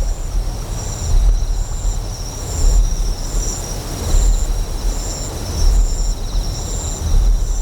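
Deep generator hum that swells in slow, even pulses about every second and a half. Over it, insects chirp in a short high call repeated a little more than once a second, with a steady high trill underneath.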